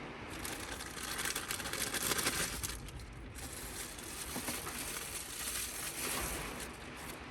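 Scratchy rustling and light clicking of hands working a plastic dashboard AC knob, pulling the old knob off its shaft, busiest in the first three seconds.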